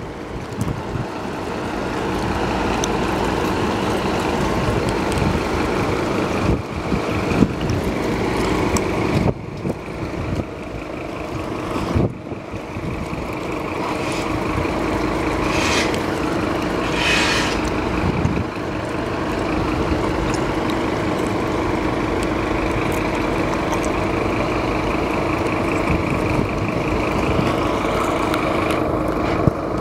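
A fire engine's diesel engine idling steadily in the station bay, with two short hisses about halfway through, like air brakes or air system releasing.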